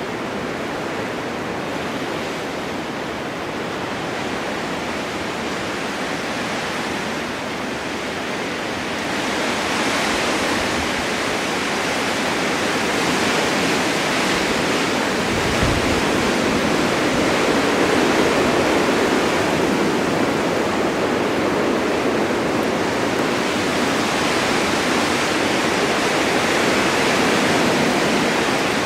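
Blizzard wind driving blowing snow: a steady rushing noise that swells about a third of the way in and stays stronger.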